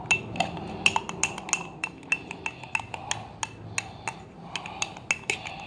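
A small spoon clinking against the inside of a glass jar, quick irregular taps several a second, as flour and water are stirred into a thick paste for a sourdough starter.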